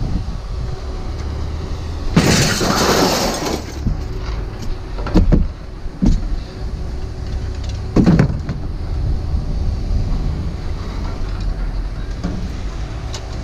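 Pieces of scrap metal being thrown down and clattering: a long crashing clatter about two seconds in, then single clanks, over a steady low rumble of machinery.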